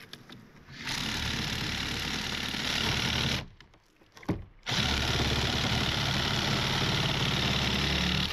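Cordless reciprocating saw cutting through a log. It runs for about two and a half seconds, stops briefly with a click, then runs again until it cuts off just before the end.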